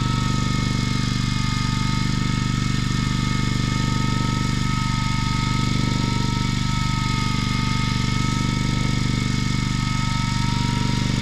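Electric fishing reel winding a hooked fish up from deep water, a steady motor whine, over the steady low hum of the boat's diesel engine idling.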